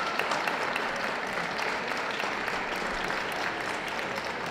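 Audience applauding steadily: a dense, even patter of many hands clapping.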